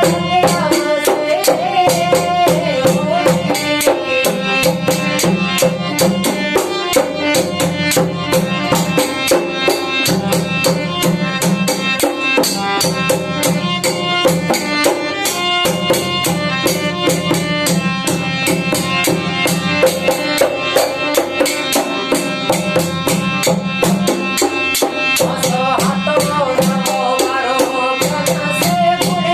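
Instrumental passage of a desi bhajan: dholak drumming a fast, steady beat with jingling, rattling hand percussion over a held melody.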